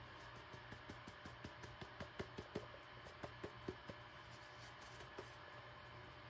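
Faint quick taps of a wad of paper towel dabbing at the plastic shell of a 3D-printed walkie-talkie prop, blotting off watered-down paint. There are about five taps a second, and they stop about four seconds in.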